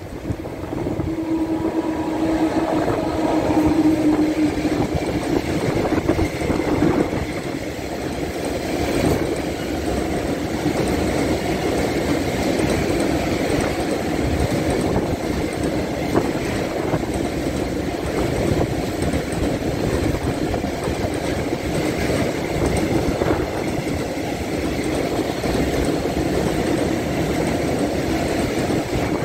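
Ex-NS 1600/1700/1800-family electric locomotive passing close with a steady hum in the first few seconds, then a long train of rail tank wagons rolling past with a continuous rumble and clatter of wheels on the track.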